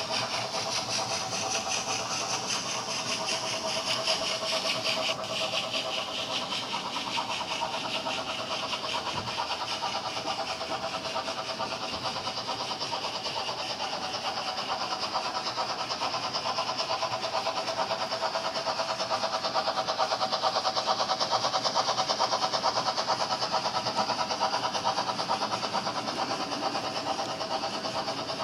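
Model trains running on a layout: a long rake of tank wagons clattering with rapid, fine clicking of metal wheels on the track, over a steady motor hum. It grows louder past the middle, as a train runs close by.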